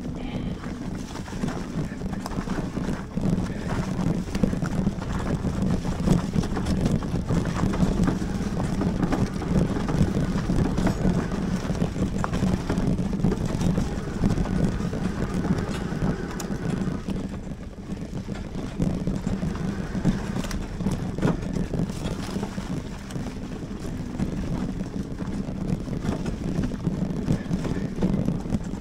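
Wind buffeting the camera microphone over the rumble of a fat-tire electric mountain bike riding a dirt trail, with frequent small rattles and knocks from the bike over the bumps.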